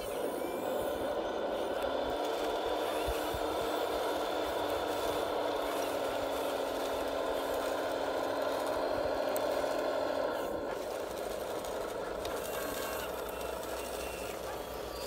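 Radio-controlled Caterpillar D10T model bulldozer driving over sand, giving a steady mechanical whine that drops off about ten and a half seconds in.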